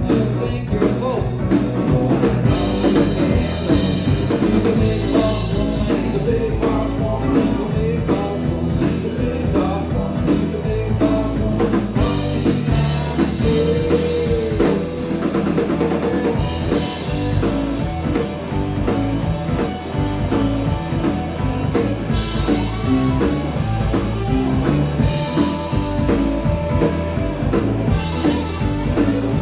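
Live band playing an instrumental passage: drum kit, electric bass, guitar and keyboards, with one bent note held about halfway through.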